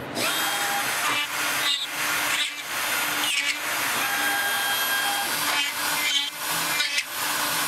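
CNC router spindle running at high speed, driving a long 4 mm drill bit into end-grain ash to bore dowel holes. The loud hiss-like running noise dips briefly several times, with a faint whine coming and going.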